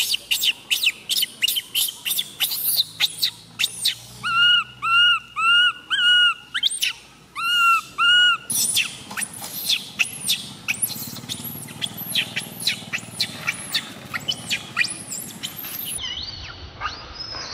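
Infant long-tailed macaque crying: a fast string of shrill squeals, with a run of short, arched, whistle-like cries in the middle. The cries grow fainter in the second half.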